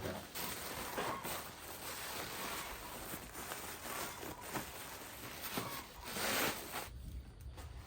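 Irregular rustling and scraping noise with scattered short knocks, swelling loudest about six seconds in and dropping away near the end.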